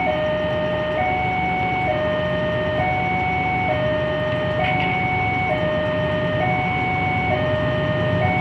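Railway level-crossing warning alarm sounding a steady electronic two-tone pattern, a higher and a lower tone taking turns about every second, warning of an approaching train. Under it runs the low rumble of a train.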